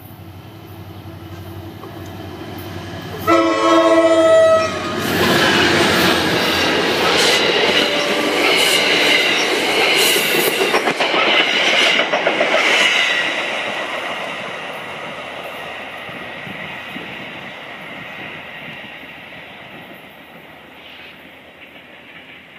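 EMD GP40PH diesel locomotive sounds one loud blast of its horn, about a second and a half long. Its train then passes close at speed, wheels clacking over the rail joints, and the noise slowly fades as it moves away.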